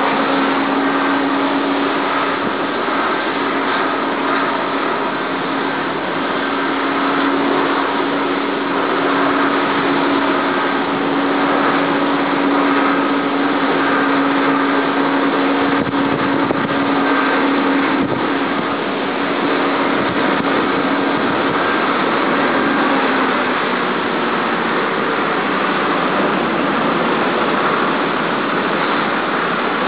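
Rough, stormy sea surging with wind noise. A steady low hum runs under it and stops about 23 seconds in.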